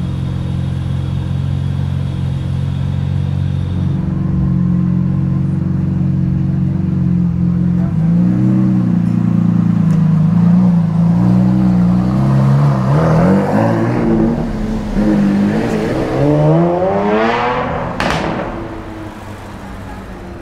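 Lamborghini Aventador SVJ Roadster's V12 running at low revs, then revving and pulling away, its pitch climbing twice near the end before the sound fades as the car drives off.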